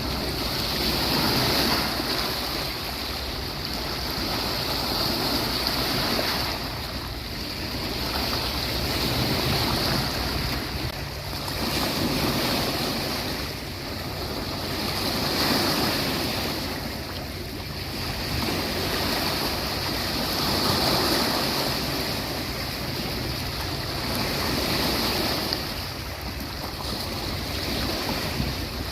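Sea waves breaking and washing up on a beach, the surf swelling and easing every few seconds.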